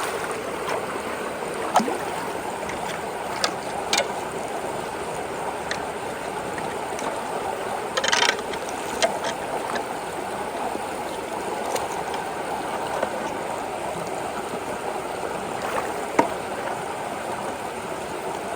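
Creek water rushing steadily through and around a road culvert, with a few sharp clicks or knocks over it, the longest about eight seconds in.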